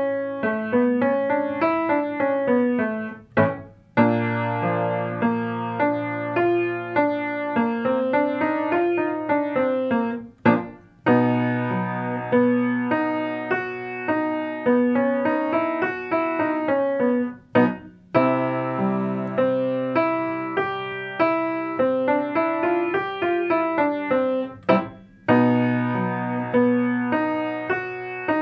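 Grand piano playing the accompaniment to a vocal warm-up exercise. Held low chords sound under a short melody that climbs and falls back, repeated in phrases of about seven seconds with a brief break between each.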